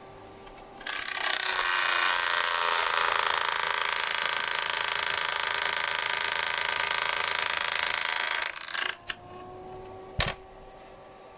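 Beldray EH0567 electric fan heater's fan spinning up and running with a loud rush of air for about seven seconds, then switching off, followed by two sharp clicks.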